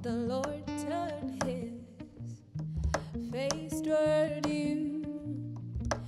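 A woman sings a worship song live, holding long wavering notes, over a band with steady low bass notes. The singing breaks off briefly for a breath about two seconds in.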